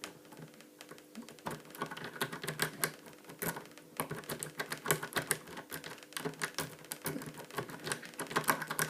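Rapid, irregular metallic clicking and scraping of a lock-pick rake being worked in and out of a padlock's keyway against a tension wrench.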